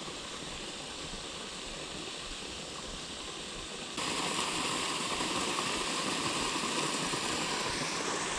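Steady rush of falling water from a small waterfall, turning abruptly louder about halfway through.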